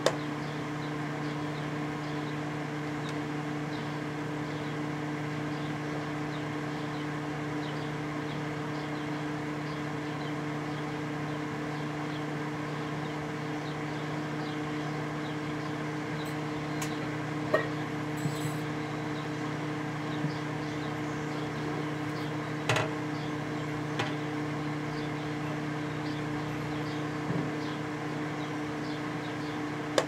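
A 1988 Samsung microwave oven running with a mercury vapor light bulb inside: a steady electrical hum. A few sharp clicks come around the middle, the loudest about two-thirds of the way through.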